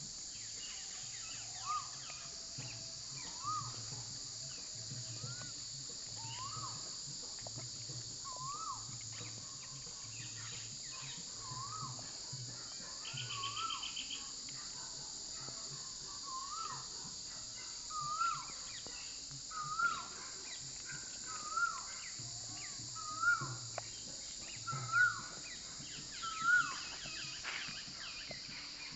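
Steady, high-pitched insect chorus of crickets or cicadas. A bird repeats a short rising-and-falling whistle about every second and a half, louder in the second half.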